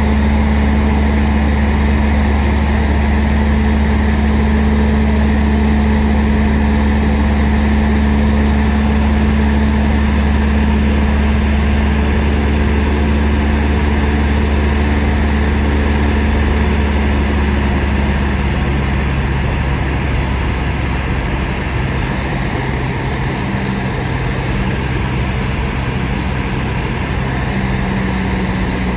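Steady drone of a single-engine Cessna's piston engine and propeller, heard inside the cabin, with a strong low hum and airflow hiss. About two-thirds of the way through, the note shifts lower and becomes a little quieter.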